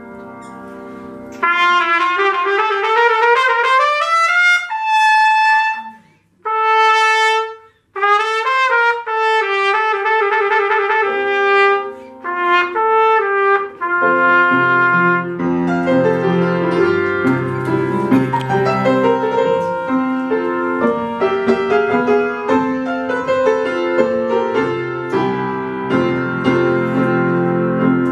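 Trumpet playing fast runs, several rising steeply, broken by two short pauses. About halfway through, piano accompaniment comes in under it with full chords.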